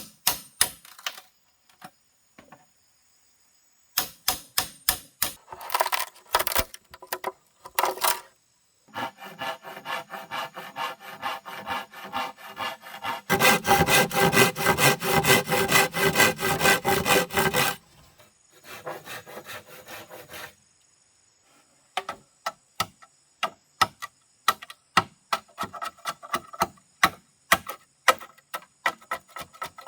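Hand tool working wood in bursts of quick, repeated rubbing strokes, broken by pauses and sharp clicks. The longest and loudest run of strokes comes about midway.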